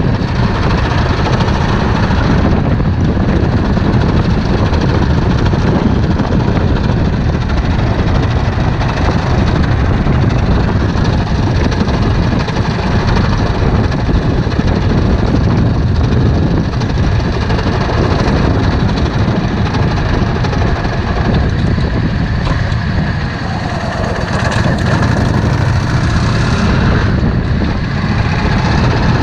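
Yamaha Drag Star 650's air-cooled V-twin engine running steadily and loudly, with a brief dip in level about two-thirds of the way through.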